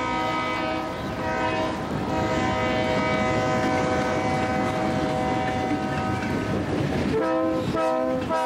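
Freight train's locomotive air horn sounding several tones together in long blasts with brief breaks, then two shorter blasts near the end, over the rumble and clatter of the passing train.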